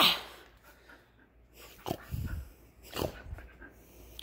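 A dog playing with a blue squeaky toy: a sharp sound right at the start, then a few short, scattered breathy and mouthing sounds from the dog about two and three seconds in.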